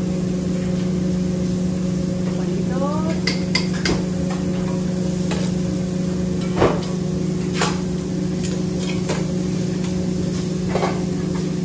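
Scattered metal clanks of tongs, a mesh strainer and aluminium pots being handled over a commercial grill, the loudest about two-thirds of the way through, over the sizzle of meat on the grill and the steady hum of the kitchen exhaust hood fan.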